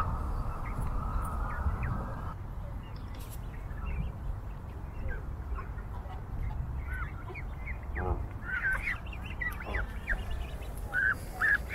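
Geese calling: scattered short honks and calls, coming thicker in the last few seconds, over a steady low rumble.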